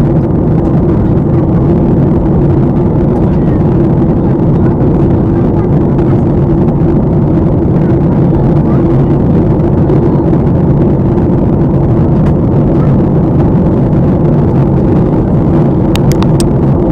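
Steady cabin noise of an airliner in flight, engine drone and rushing air heard through the window seat, a loud even low roar with a faint steady hum in it. A few light clicks near the end.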